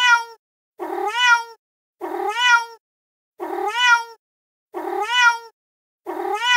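A recorded domestic cat's meow played on a loop: the same short meow repeats identically about every 1.3 seconds, six times.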